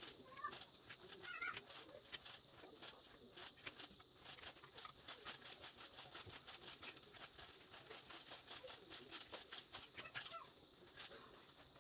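Faint run of quick, irregular clicks, with a chicken clucking briefly about half a second in and again near the end.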